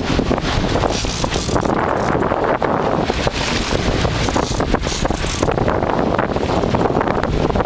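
Wind buffeting the microphone in gusts over the steady low drone of a sport-fishing boat's engine.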